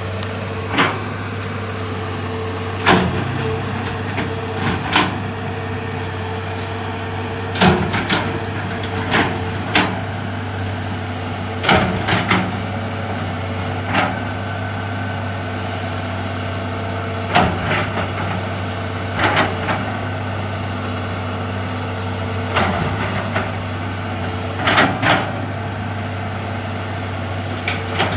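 Hitachi EX200 hydraulic excavator's diesel engine running steadily under a low drone, with sharp clanks and knocks every one to three seconds from the working machine.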